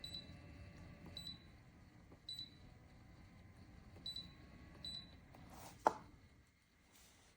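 Five short, high electronic beeps at uneven intervals, then a single sharp click about six seconds in, the loudest sound. A low background hum fades out after the click.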